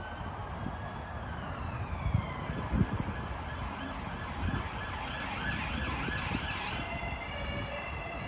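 Emergency vehicle siren wailing, its pitch gliding slowly up and down, over wind buffeting the microphone.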